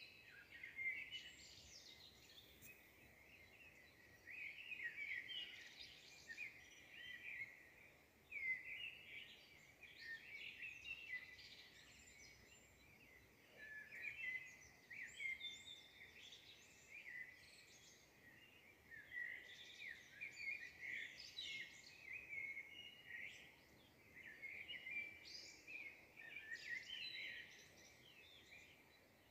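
Faint birdsong: small birds chirping and twittering in a steady stream of short, quick, high notes that rise and fall in pitch.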